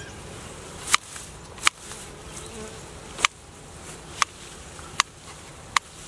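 Honeybees buzzing faintly around a hive entrance as the morning foragers start to fly, broken by six short, sharp clicks spread through, which are the loudest sounds.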